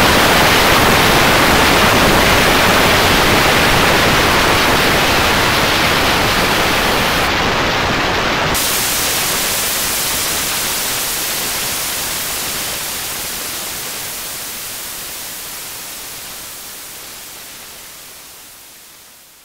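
Steady hiss of static-like noise spread across all pitches. About eight seconds in it turns thinner and hissier, and it fades out slowly toward silence.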